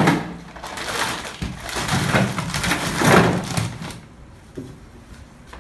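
Frozen fish being handled out of a freezer: a sharp hard knock, then about three seconds of scraping and rustling, with a small tap near the end.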